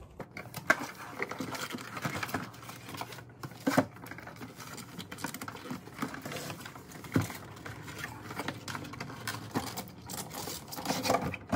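Product packaging being opened and handled by hand: irregular rustling and scraping with occasional sharper knocks.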